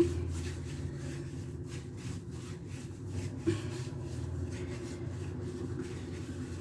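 Hands rolling and rubbing sweet-bread dough on a work surface in repeated scraping strokes, over a steady low hum, with two light knocks, at the start and about halfway through.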